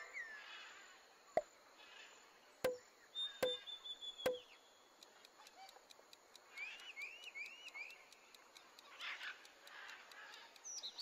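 Faint, sparse quiz-video sound effects: four sharp knocks in the first half, then a quick run of short chirps.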